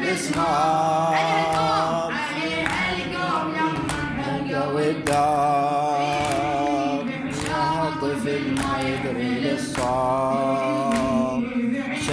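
Unaccompanied Shia mourning elegy chanted by a boy into a microphone: long, wavering held notes in phrases of one to two seconds with short breaths between, and no instruments.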